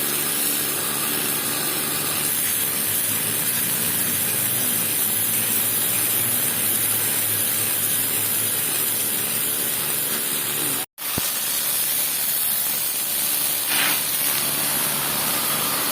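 Pressure washer spraying water onto a floor to strip moss: a steady hiss with a low, even hum underneath. The sound cuts out completely for an instant about eleven seconds in.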